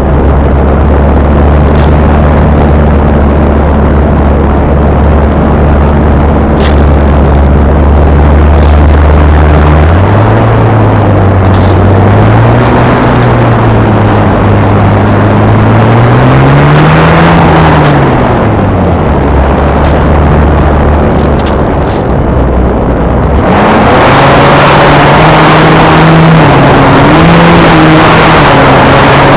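An RC airplane's motor runs at a steady pitch for about the first third, then its pitch rises and falls repeatedly with throttle changes, over a loud rushing noise.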